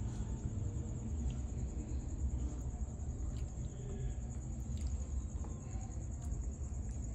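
Steady high-pitched insect trill, finely pulsed and unbroken, over a continuous low rumble, with a few faint clicks.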